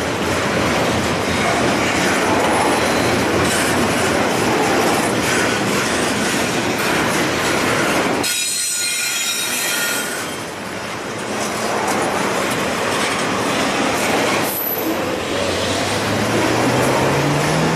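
Double-stack intermodal freight train rolling past at close range: steel wheels on the rails make a loud, steady rumble with clicking over the rail joints. About eight seconds in the rumble briefly drops and a high wheel squeal rings out.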